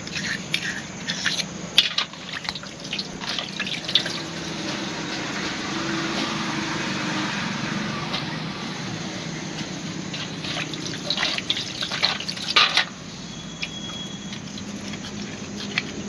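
Water running while metal motorcycle fork parts are washed, with clinks and knocks of metal. The water cuts off suddenly about three seconds before the end.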